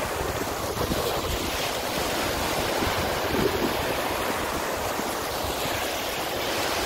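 Waves breaking and washing up a beach in a steady wash of surf, with gusty wind rumbling on the microphone.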